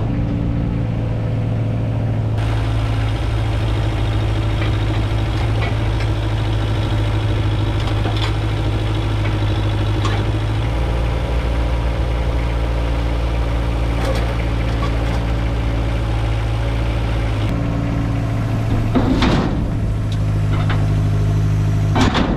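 Small tracked excavator's engine running steadily.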